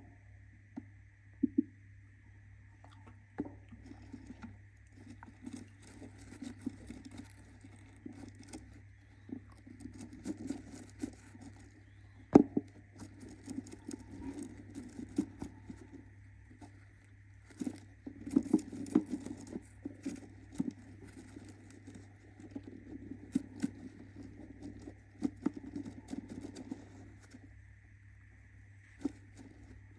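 Budgerigar moving about in its nest, making irregular scratching, shuffling and rustling with scattered sharp taps. The loudest tap comes about twelve seconds in.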